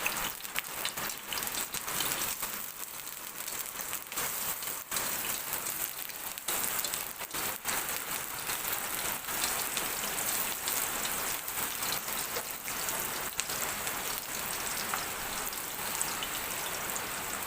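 Chopped onions sizzling in hot oil in a pan: a steady hiss dotted with small crackles.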